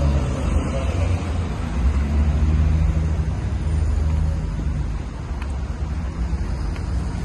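City street traffic: a motor vehicle's engine running close by as a low steady hum over road noise, easing off a little about five seconds in.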